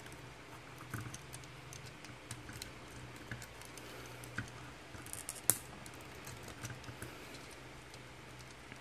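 Small plastic clicks and taps from the joints and parts of a plastic transforming robot figure being worked by hand, with one sharper click about five and a half seconds in.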